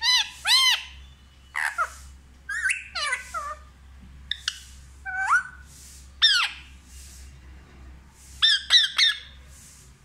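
Rose-ringed parakeet giving short, sharp squawking calls in quick runs of two or three, about a dozen in all, with brief pauses between the runs.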